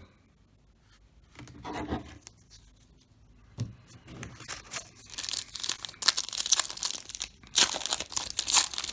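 A plastic trading-card pack wrapper being torn open and crinkled, starting about four seconds in and becoming loud, dense crackling after about five seconds.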